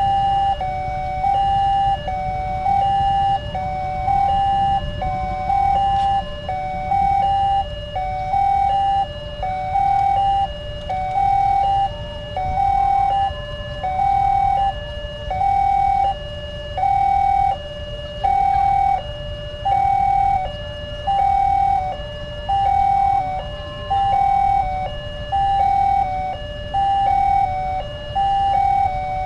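Railway level-crossing warning siren sounding its steady two-tone alarm, a higher and a lower tone alternating about every half second while the barriers are down, over a low rumble.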